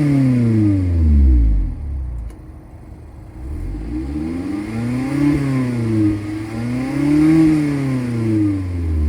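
Mazda Miata four-cylinder engine through a Flyin' Miata active exhaust, free-revved: a rev drops back to idle in the first two seconds, then two more revs rise and fall, peaking about five and seven and a half seconds in.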